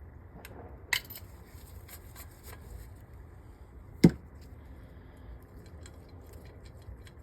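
Small metal carburettor parts and hand tools being handled, with light clicks and clinks throughout, a sharp click about a second in and a louder knock about four seconds in.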